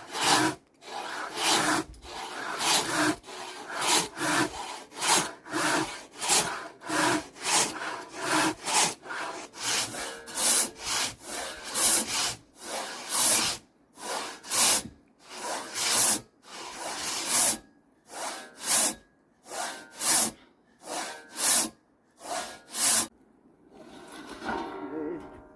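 Large Nepalese hand saw cutting through timber in steady, rasping back-and-forth strokes, about one and a half a second, which stop near the end.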